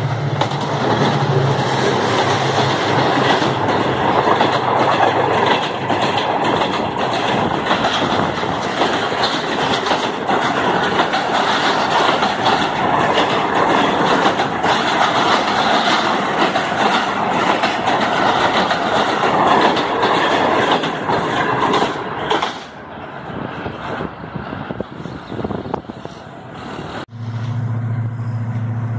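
Diesel-hauled passenger train of Pakistan Railways, the Karachi Express, passing close by at speed. A loud rumble is packed with rapid clickety-clack of the coach wheels over the rail joints. About three quarters of the way in it drops away as the last coaches go by, and a steady low hum follows near the end.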